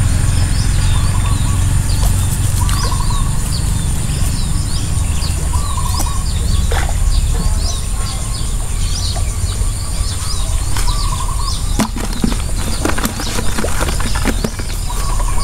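Wind rumbling on the microphone, with small birds chirping and calling throughout over a steady high-pitched whine. A few sharp clicks come about three-quarters of the way through.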